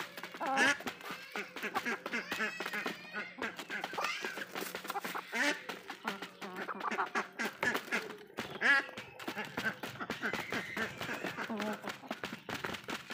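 Hens clucking again and again while they feed, with the sharp taps of their beaks pecking at the cardboard box.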